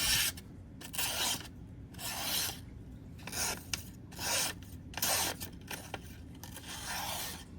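A knife blade drawn in repeated sharpening strokes across an abrasive surface: about nine short rasping scrapes, roughly one a second.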